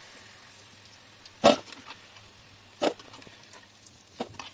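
Three sharp clacks of kitchen utensils, about a second and a half apart, against a faint steady background.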